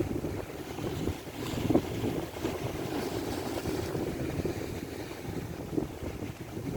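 Strong wind buffeting the microphone, a rumbling noise out on open water, with a couple of brief knocks about a second and a half in.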